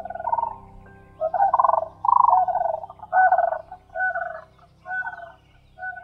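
Demoiselle crane calling: a series of about seven loud, rolling, rattly calls, roughly one a second, growing shorter toward the end. Soft background music plays underneath.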